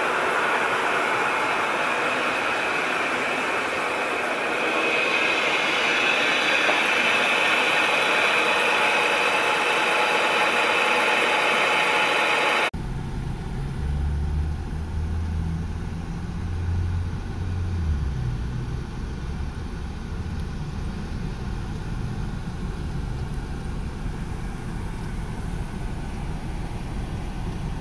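Rear-loader garbage truck running close by, with a high whine that grows louder about four seconds in. It cuts off suddenly to a low, steady rumble of traffic heard from inside a car.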